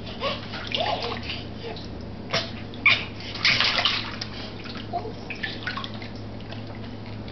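Water splashing and sloshing in a small baby bath as a baby is washed by hand: a string of short splashes, the loudest near the middle, with a longer splashing burst shortly after.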